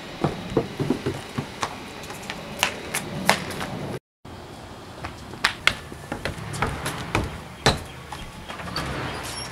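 Footsteps of two people walking across a porch: irregular sharp knocks and thuds, broken by a brief total silence about four seconds in.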